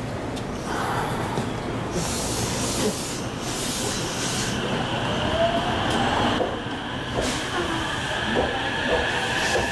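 JR West 227 series electric multiple unit pulling away from the platform. There are bursts of air hiss in the first few seconds, then the traction motors' whine rises in pitch as the train gathers speed, with wheels rolling past and clicking.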